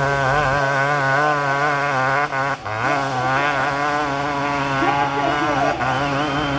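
Hill-climb motorcycle engine running hard at high revs, its pitch wavering up and down, with a brief dip about two and a half seconds in.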